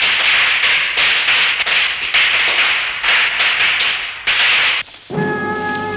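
A long string of firecrackers going off in a rapid crackle of pops, stopping suddenly about five seconds in. Music with held chords comes in right after.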